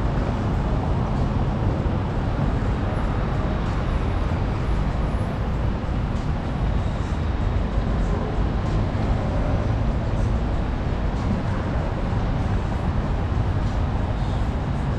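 Steady rumble of road traffic on a busy city street, with no single vehicle standing out.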